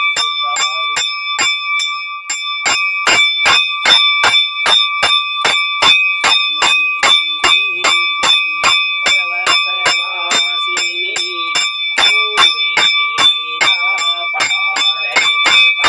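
Temple bell rung by hand over and over at a steady pace, about two to three strokes a second, its ring carrying on between strokes.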